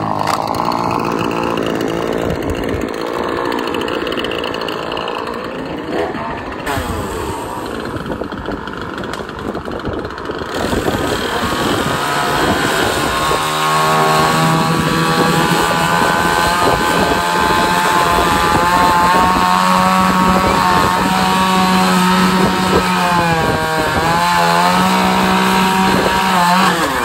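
Chainsaw running and cutting through a small tree branch. It is uneven for the first half, then revs up about halfway and holds at high speed with brief dips near the end; the freshly hand-filed chain cuts smoothly.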